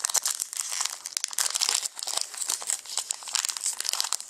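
Crinkling and rustling of trading-card pack wrappers and cards being handled and opened, an irregular run of small crackles and rustles.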